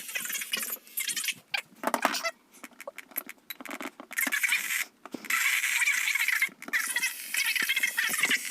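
Weather radio receiver hissing and crackling with static on a weak signal. It cuts out several times in the first half, then holds a steady hiss.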